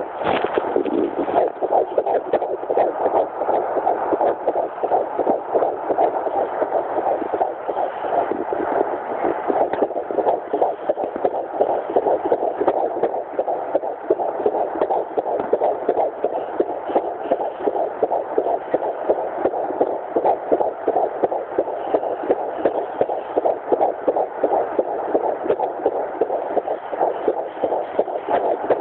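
Fetal heartbeat at 12 weeks 3 days of pregnancy, heard through a Doppler monitor as a fast, steady, rhythmic whooshing pulse.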